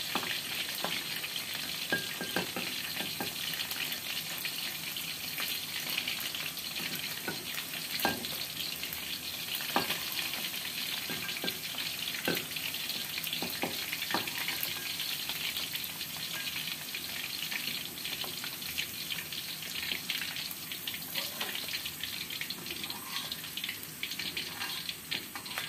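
Cornstarch-coated chicken fillet pieces deep-frying in hot oil in a wok: a steady crackling sizzle. A few sharp knocks come from the spatula against the wok as the pieces are turned.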